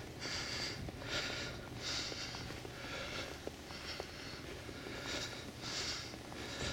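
A person breathing hard and audibly, about one loud breath a second with slightly uneven spacing, over a low steady rumble.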